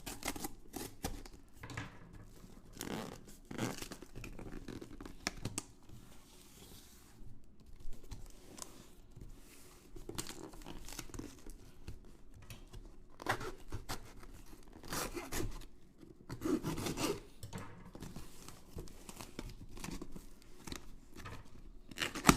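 A cardboard shipping box being opened by hand: packing tape ripped and cut, and cardboard and packing material rustling and scraping in irregular strokes.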